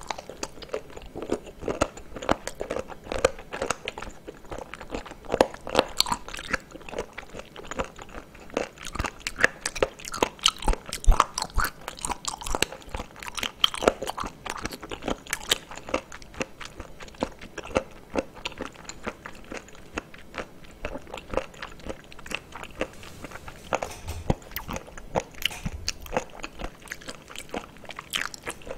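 A person chewing firm raw abalone, up close: a continuous run of short, sharp mouth clicks as the flesh is bitten through and worked between the teeth.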